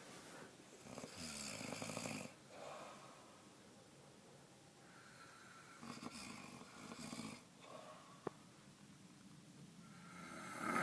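Snoring in slow breaths: a long snore about a second in, another from about five to seven seconds, and a third starting near the end.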